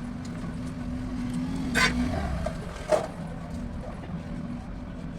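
Steady low background hum with two short sharp clicks, about two and three seconds in, of small tools touching the phone board.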